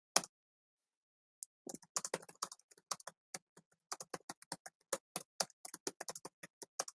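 Typing on a computer keyboard: after a single click at the start and a short pause, a fast, irregular run of key clicks begins about a second and a half in.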